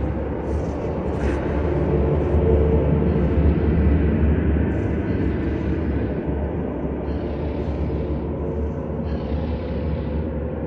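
Dark ambient music: a steady low rumbling drone with sustained tones above it, and washes of hiss that swell in twice near the end.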